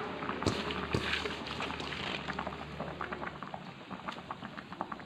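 Fish curry broth boiling in a pan, with a steady crackle of small popping bubbles; two sharper knocks about half a second and a second in.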